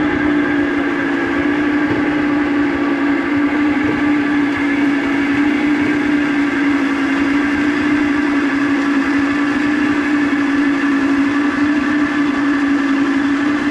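Water rushing through a homemade drum-built waterwheel as it turns, with a steady hum from the belt-driven generator it spins to light the bulbs.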